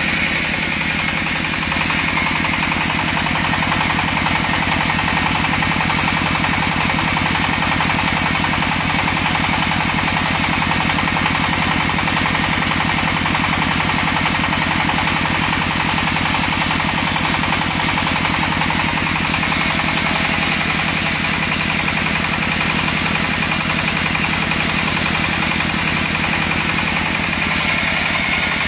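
Engine-driven bandsaw sawmill running steadily with its throttle up, the engine's fast even beat under a steady high-pitched hum.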